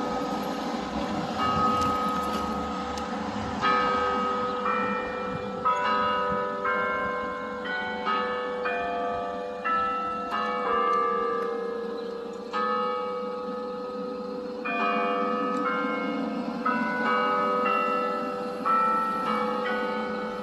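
Schulmerich NovaBell Gen 4 digital bell system playing sampled church bells through the tower's loudspeakers: a run of bell strikes at many different pitches, a new note about every second, each ringing on and fading as the next is struck.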